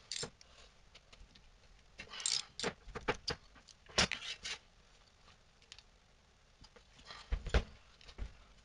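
Scattered metallic clinks, rattles and short knocks of hand tools and hardware on a small power transformer as it is reassembled and its housing is bolted up tight.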